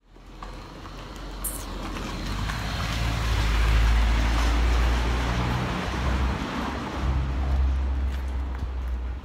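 A car driving past close by on a dirt road, engine and tyre noise with a low rumble. It swells over the first few seconds, is loudest about four seconds in, then slowly fades.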